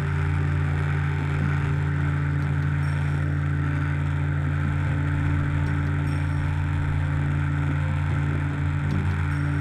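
A steady mechanical hum with a strong low drone and a hiss over it, as of a machine running at constant speed.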